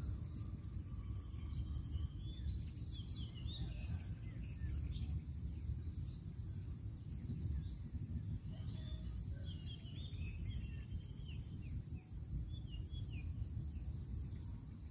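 Outdoor field ambience: insects trilling steadily in several high-pitched bands, with birds chirping here and there, over a low rumble.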